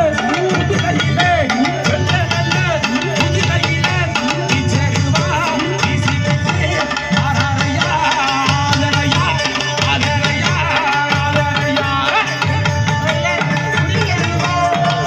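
Tamil folk devotional music: a steady, driving hand-drum beat under a wavering melodic line.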